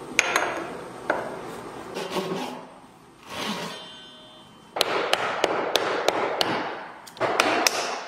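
Light clicks and scrapes of a steel planer blade being fitted against a wooden body, then a fine-toothed handsaw cutting through wood in quick strokes from about halfway through, with a last short burst near the end.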